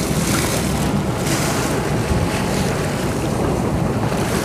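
Wind gusting across the microphone over the steady low rumble of a sportfishing boat under way, with water washing along the hull.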